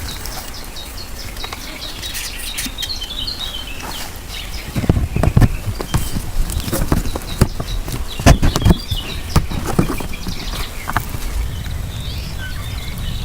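Small birds chirping, with bursts of knocks and thumps in the middle over a low rumble.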